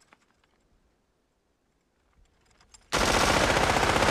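A long burst of automatic gunfire starts suddenly about three seconds in, after a few faint clicks.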